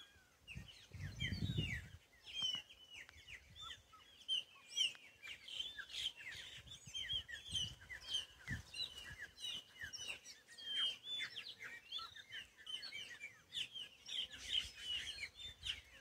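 A chorus of many birds, among them chopi blackbirds and red-rumped caciques, giving dense, overlapping chirps and whistles with no pause. There is a brief low rumble about a second in.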